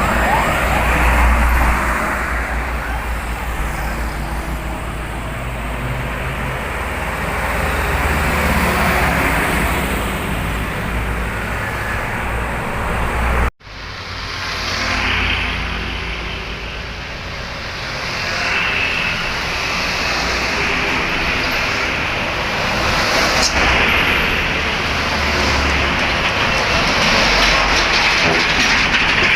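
Motorbikes and cars passing on a busy road: a continuous traffic rumble that swells and fades as vehicles go by. About halfway through the sound cuts out for an instant, then the traffic noise resumes.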